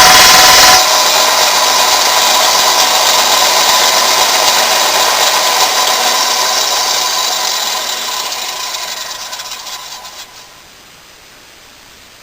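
Aldi Work Zone combination belt grinder and grinding-stone machine running loud, then dropping away sharply about a second in and winding down. Its whine and hum fade away over about ten seconds until it stops.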